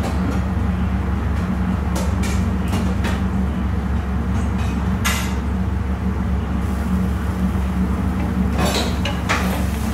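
A steady low hum with a few light clinks and knocks of kitchenware against an aluminium cooking pan, about two seconds in, three seconds in, five seconds in and near the end.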